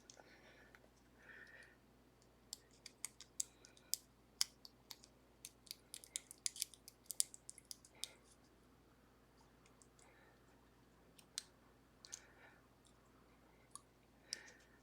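Small, sharp metal clicks and taps from a shim and tools being worked against a Ruko 500 lock cylinder during disassembly: a quick run of clicks for several seconds, then a few scattered ones.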